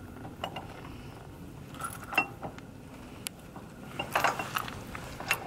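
Key turning and rattling in a solid-steel trailer coupler lock as it is fitted over the hitch: scattered small metallic clicks and jingles, with a quick cluster of them about four seconds in.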